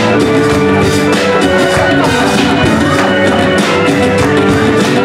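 Live band playing an instrumental passage with drum kit, bass, guitars, keyboard and saxophone, with a steady drum beat under held notes and a few bent notes.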